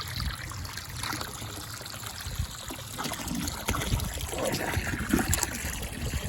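Water from the well line running and trickling into a cattle stock tank. It starts abruptly and then runs steadily.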